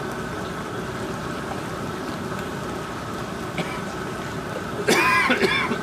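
Steady rushing of a large aluminium seafood boil pot at a rolling boil over its burner. Near the end a man coughs and clears his throat on the strong, spicy steam.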